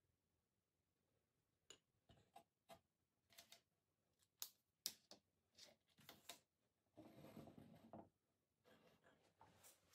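Faint clicks and taps of decorative pedestal jars being handled and set down on a tabletop, then a brief scraping rustle about seven seconds in and a fainter one near the end.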